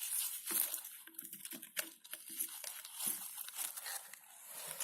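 Irregular crunching and crinkling with scattered small clicks, from snow and gear being handled at a snow-covered beehive.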